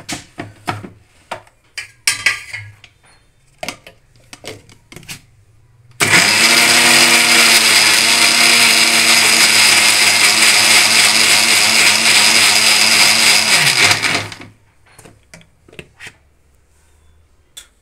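Kitchen mixer grinder: a few clicks and knocks as its steel jar is handled and seated on the base. Then the motor runs loudly for about eight seconds, spinning up quickly and winding down at the end, as it grinds a watery tomato, coriander and spice masala into a fine paste.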